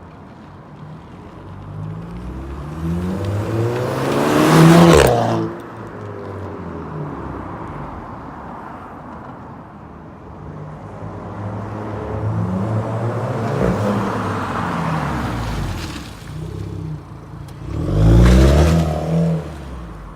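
Volkswagen Scirocco 1.4-litre four-cylinder petrol engine revved while stationary: the revs climb to a loud peak about four seconds in and drop sharply back to idle, swell again in the middle, and rise to a second quick loud rev near the end before falling back.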